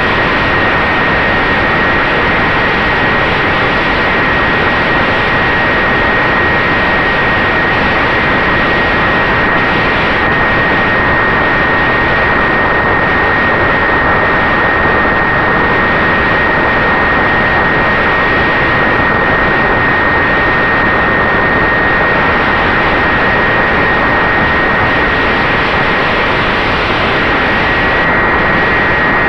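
Brushless electric motor and 8x4 propeller of an FX-61 Phantom flying wing running with a steady high whine at constant throttle, under a loud rush of wind over the camera's microphone in strong wind.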